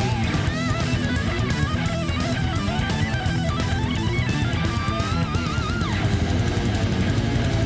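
Background rock music led by electric guitar, a melodic lead with vibrato over a steady low accompaniment.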